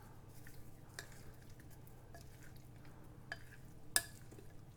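Faint soft stirring in a mixing bowl as paneer cubes are gently turned through a thick yogurt-spice marinade, with a few light clicks of the spoon against the bowl, the sharpest about four seconds in.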